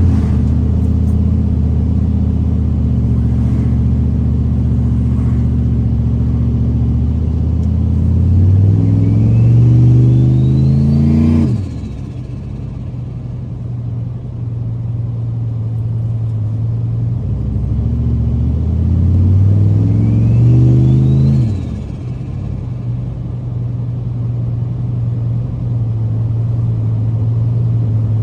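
Turbocharged car engine under acceleration, twice. Each time, a rising turbo spool whistle climbs with the revs, and the sound drops off suddenly as the throttle is lifted and the turbo flutters.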